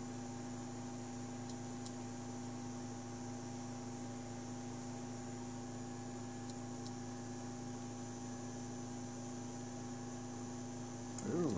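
Steady electrical hum with several held tones, from stepper motors energised at 2 A by TMC2660 drivers and a small 40 mm cooling fan.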